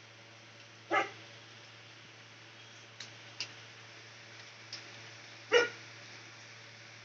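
A dog barks twice, single loud barks about four and a half seconds apart, with a few faint clicks between them over a steady low hum.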